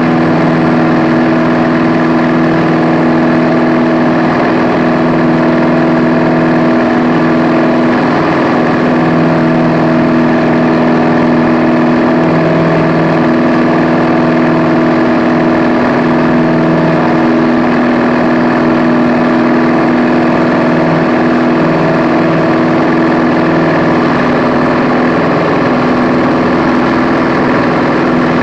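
Piper Cherokee 180's four-cylinder Lycoming O-360 engine and propeller heard from inside the cockpit in flight: a loud, steady drone that holds an even pitch.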